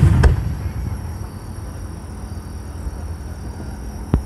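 Aerial firework shells bursting: a loud boom right at the start, a second crack a moment later and a rumbling echo, then a single sharp crack near the end, over a steady low rumble.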